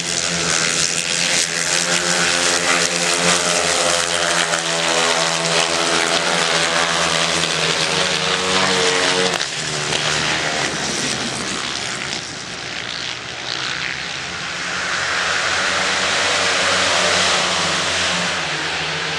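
Solo sand-track racing motorcycles running hard around the oval, their single-cylinder engines making a loud, high, buzzing note that rises and fades as they pass. The sound changes abruptly about halfway through, then swells again near the end.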